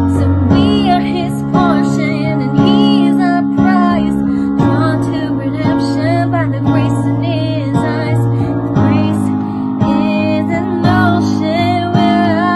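A woman singing a worship song over strummed acoustic guitar, her held notes wavering with vibrato.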